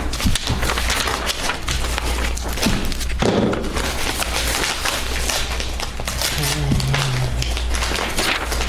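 Sheets of paper being leafed through and shuffled on a table close to a tabletop microphone: dense rustling and crinkling with occasional knocks against the table, over a steady low hum.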